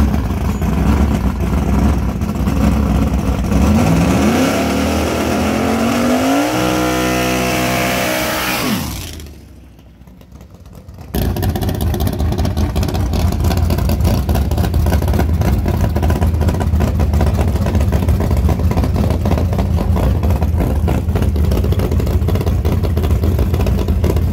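A drag car's engine running loud, rising in pitch as it pulls away, then fading out. After a sudden cut, a drag car's engine idles loud and steady with a rapid, even pulse, waiting behind the start line.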